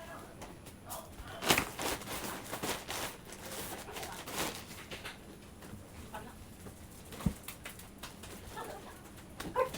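Rustling and handling of unboxed packaging and clothes: scattered crinkles, busiest in the first half, and a sharp click about seven seconds in.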